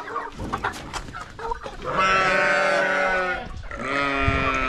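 Sheep bleating twice: one long call about two seconds in, then a shorter one just after.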